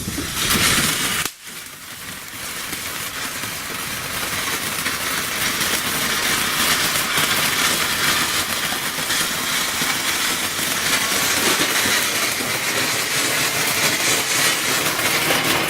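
A small consumer ground firework burning with a steady, loud hiss for about fifteen seconds, briefly dropping out about a second in.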